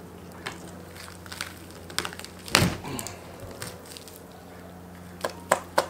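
Wet cracks and snaps of a gray wolf's lower jaw being forced past its hinge and cut free of the skull, with one louder crack about two and a half seconds in and three quick snaps near the end. The jaw is tough and resists coming off.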